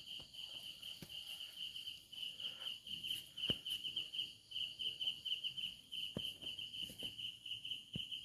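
Crickets chirping in a steady, fast-pulsing trill, with a few faint clicks scattered through.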